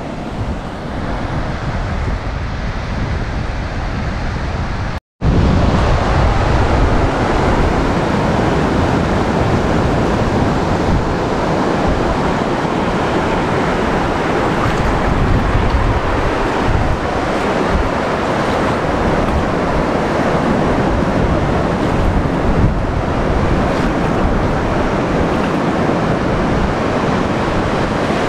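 Surf washing up a sandy beach and over the shallows, with wind buffeting the microphone. The sound cuts out for a split second about five seconds in, then comes back louder.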